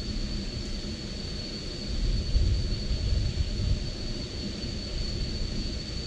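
Wind buffeting the microphone, a low uneven rumble that swells and fades, over a steady high-pitched whine.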